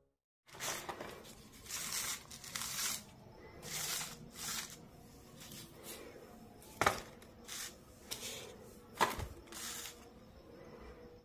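Vegetables being handled in a plastic mesh basket: rustling and scraping in short spells, with two sharp knocks about seven seconds in and again two seconds later.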